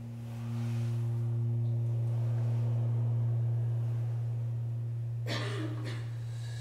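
Low, steady sustained tone of contemporary stage music, swelling in and holding on one pitch, with fainter higher tones above it. About five seconds in, a short rushing noise cuts across and the upper tones drop away.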